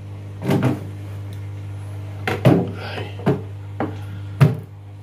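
Aquarium lid being handled, giving a series of about six short knocks and clatters, the loudest near the end, over a steady low hum.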